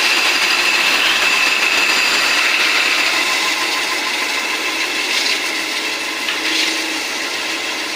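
CNC machine cutting a stainless steel (SS316) camlock fitting: a steady grinding cutting noise with a high whine that fades about three seconds in.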